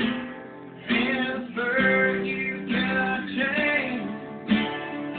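Guitar music: chords strummed every second or so over held notes, some notes bending in pitch.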